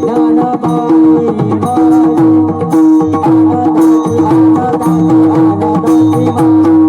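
Marathi devotional bhajan music: an Indian hand drum plays a steady rhythmic pattern under a held drone note and a melody line, with no clear singing.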